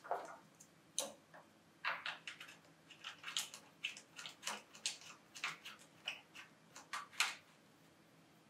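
Light, irregular clicks and scrapes of hard plastic and small screws as a round plastic exhaust vent adapter is fitted and screwed onto the back panel of an xTool M1 laser cutter.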